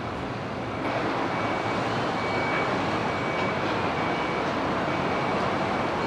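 Steady rushing outdoor noise, growing louder about a second in.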